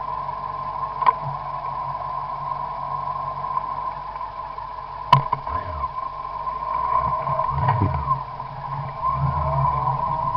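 Car engine idling, heard from inside the car under a steady high hum, with two sharp clicks about one and five seconds in. The engine picks up in the second half as the car pulls away.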